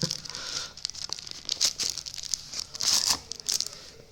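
Shipping packaging being crinkled and torn open by hand, in irregular rustling bursts with small clicks, loudest twice in the middle.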